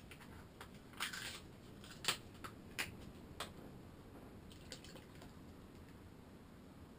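Plastic bottle of citric acid being opened and handled: a few faint clicks and taps of the cap and bottle, several sharp ones between about one and four seconds in, then a couple of softer ticks.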